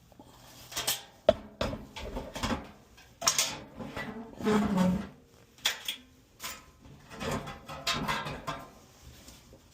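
Irregular clanks, clicks and scrapes of furnace blower parts being handled and fitted back together, with a sharp click about a second in and a longer rattling scrape about halfway through.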